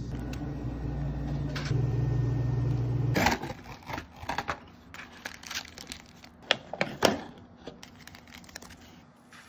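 A steady low hum for about three seconds, which cuts off suddenly. Then cup-noodle packaging is handled: foil and plastic sauce sachets and the paper lid crinkle and rustle in a string of sharp crackles.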